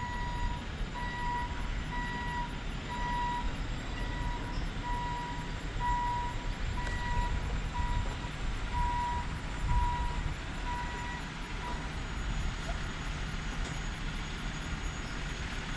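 Vehicle reversing alarm beeping about once a second over a running engine's low rumble; the beeping stops about twelve seconds in.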